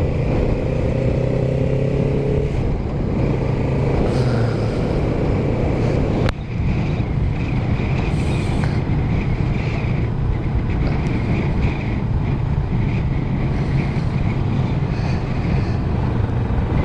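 Motorcycle engine running steadily while riding, with wind rushing over the helmet microphone. The engine sound drops off briefly about six seconds in.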